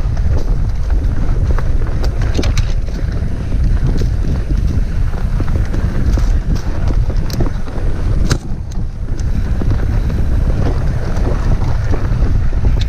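Mountain bike descending a dirt trail at speed, with heavy wind buffeting on the camera's microphone over tyre noise and frequent small clicks and rattles from the bike. One sharp click stands out a little over eight seconds in.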